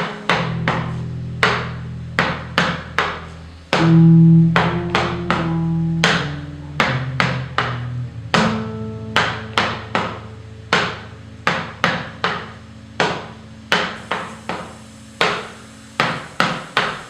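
Zapateado footwork: sharp wooden heel-and-toe strikes on a tarima platform, about three a second, over a few held bass notes that are loudest a third of the way in.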